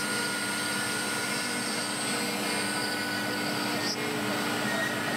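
ATS 2513 CNC router's spindle running steadily while a fine carving bit mills a relief ornament into burl wood: an even machine hum with a few fixed steady tones over the hiss of the cut.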